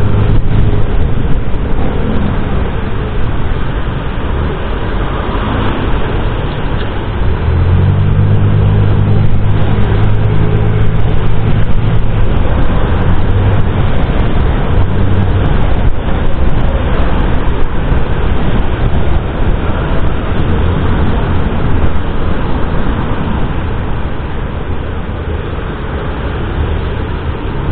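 Honda Click scooter running steadily while riding through city traffic, its low engine hum mixed with wind noise on the microphone and the sound of surrounding cars.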